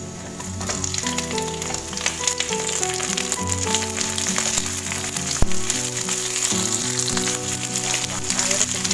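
Carrot chunks, garlic and shallots sizzling in hot oil in a nonstick wok as a slotted spatula stirs them. There is one sharp knock about five and a half seconds in, and near the end water is poured into the pan and the sizzle grows louder. Background music plays throughout.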